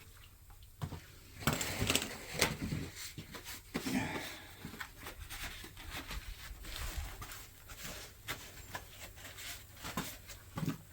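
Irregular metal knocks, clinks and scraping as a crankshaft is handled and test-fitted into the engine block, busiest a couple of seconds in.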